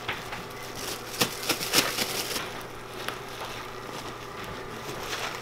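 Plastic bag crinkling in scattered sharp crackles as steamed purple sticky rice is handled in it.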